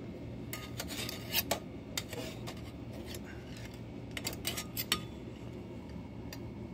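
Metal utensils clinking and scraping against an aluminium cooking pot in two short clusters of clicks, the first about half a second in and the second around four and a half seconds in, over a steady low hum.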